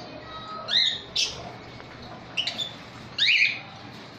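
Caged lovebirds giving short, shrill calls, about four in all, the loudest near the end.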